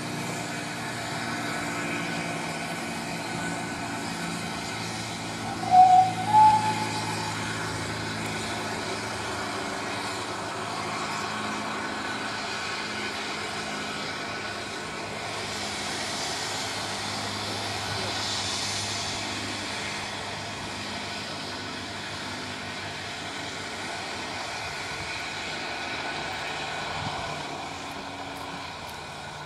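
Steady drone of a small shunting locomotive running as it approaches slowly. Two short, loud train-whistle toots sound about six seconds in, the second slightly higher. A hiss swells briefly midway.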